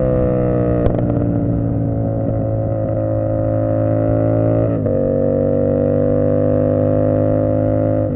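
Tuned CFMoto 450SS parallel-twin motorcycle engine running at a steady cruise under light throttle. About five seconds in the pitch steps down, as on an upshift, then climbs slowly as the bike pulls again.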